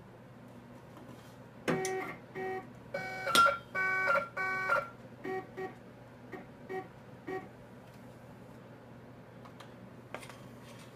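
A US Cutter SC vinyl cutter's stepper motors whining in a series of short stop-start moves, about a dozen bursts. The moves are jogged from the control panel, and they get shorter and fainter after about five seconds. Faint clicks come near the end.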